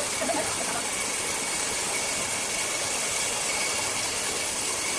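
Large sawmill circular saw running, a steady hiss with a thin high whine held throughout.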